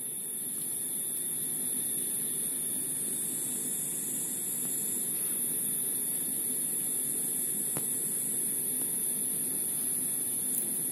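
Steady background noise: a high-pitched hiss over a low hum, unchanging throughout.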